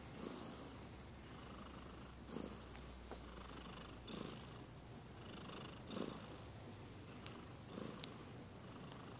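Sleeping domestic cat snoring softly, about five slow breaths, one every two seconds or so. A faint click near the end.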